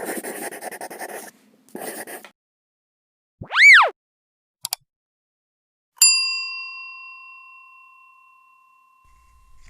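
Sound effects: two short hissing whooshes, then a loud tone that sweeps up and back down, a pair of quick clicks, and a bell ding about six seconds in that rings out and slowly fades.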